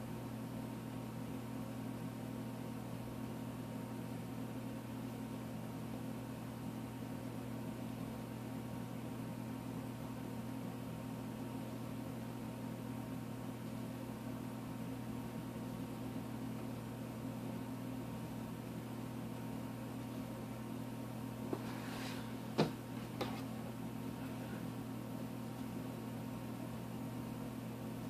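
Steady low hum in the room, even and unchanging, with two or three brief faint clicks about three-quarters of the way through.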